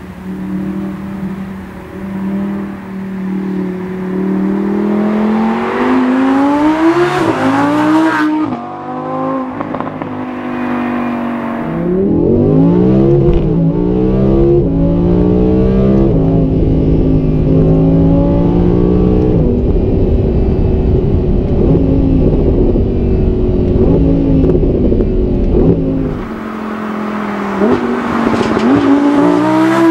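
Audi R8 V10 Plus's naturally aspirated 5.2-litre V10 with sports exhaust, accelerating hard through several quick upshifts of its 7-speed S-Tronic gearbox: the engine note climbs, drops at each shift, then climbs again. In the middle stretch it is heard from inside the cabin under a heavy low road rumble. Near the end it revs up again as the car comes closer.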